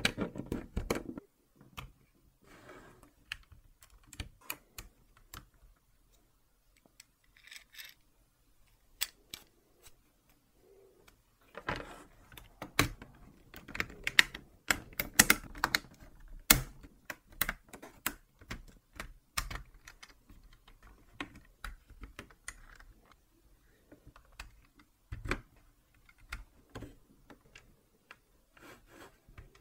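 Lego Technic plastic parts being handled and pressed together: irregular clicks and snaps of pins, beams and gears going into place, with a lull about a quarter of the way through and the densest clicking around the middle.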